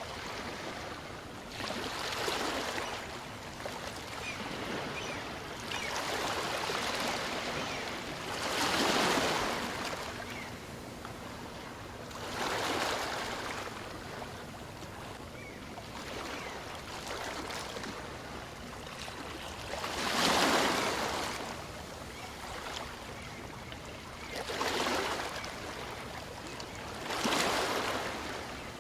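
Small waves on a calm sea breaking and washing up a beach, a soft wash swelling every few seconds and ebbing between.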